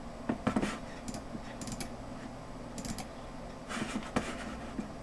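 A few light, irregularly spaced clicks of a computer mouse over the steady low hum of a running computer.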